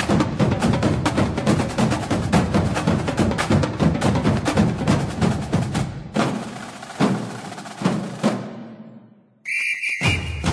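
Fast, dense drum and percussion music with rapid strikes. It breaks off briefly about six seconds in and fades away, then starts again near the end with a shrill steady whistle blast over the drumming.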